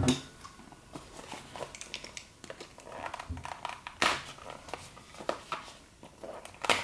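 Cardboard trading-card box and its packaging being opened and handled by hand: scattered rustling and small clicks, with a sharper knock right at the start and another about four seconds in.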